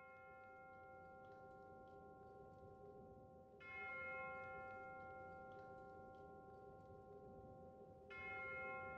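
Quiet, slow bell tones: a fresh stroke about three and a half seconds in and another near the end, each ringing on with a long sustain over the fading one before.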